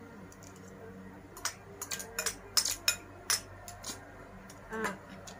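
A spoon clicking and scraping against a bowl while eating, a quick run of sharp clicks in the middle.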